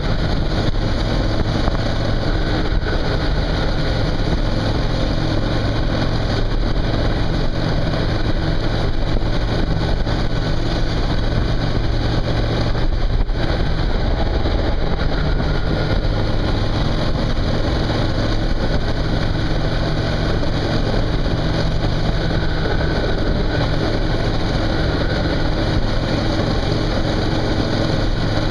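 Suzuki V-Strom motorcycle engine running at a steady road speed, under a constant hiss of wind and road noise. The engine note dips briefly about halfway through, then steadies.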